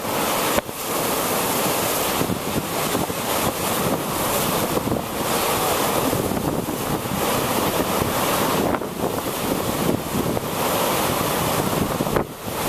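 Storm surf in a hurricane: wind-driven waves breaking and churning against a dock, as a steady roar, with gusting wind buffeting the microphone.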